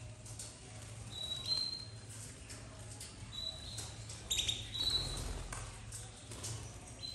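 Domestic canaries in an aviary giving several short, high single-note calls, with scattered soft clicks and wing flutters as birds hop and flap between perches.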